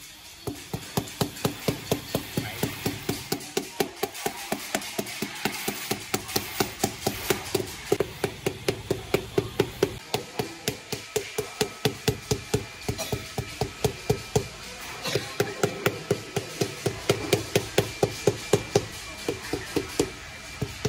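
A rubber mallet tapping 30x30 cm ceramic floor tiles down into a sand-cement mortar bed to seat and level them. The taps come quick and steady, about three or four a second, with a short break about two-thirds of the way through.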